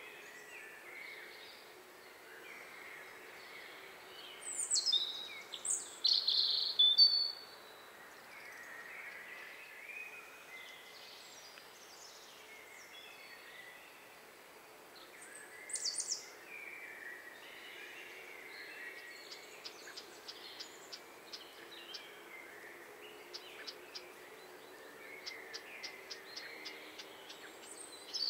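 Woodland birds calling and chirping in short high bursts over a steady background hiss, loudest about five to seven seconds in and again briefly around sixteen seconds. A run of short, quick ticks in the last third.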